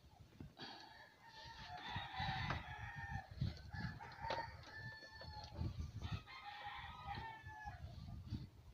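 A rooster crowing twice, two long drawn-out crows with a pause between, over low irregular knocks.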